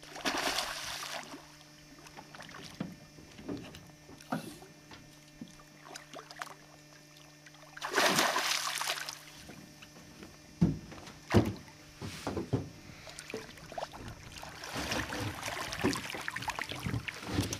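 Peacock bass striking a surface fly with a loud splash about eight seconds in, after a smaller splash as the fly is stripped across the water near the start. A few sharp knocks follow, then the hooked fish thrashes and splashes at the boat's side near the end.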